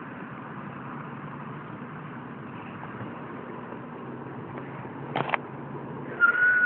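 Siamese cat giving one short, high meow near the end, after a couple of brief knocks about five seconds in, over steady background noise.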